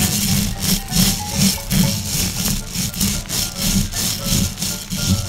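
Upbeat instrumental background music with a quick, even beat of about four strokes a second, crisp percussion on each beat over a low bass.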